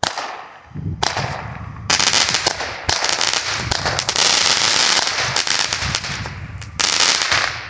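MagValu Desert Strike seven-shot firework fountain going off: a loud, continuous spraying hiss broken by sudden bursts as it fires its shots, about a second apart at first and once more near the end.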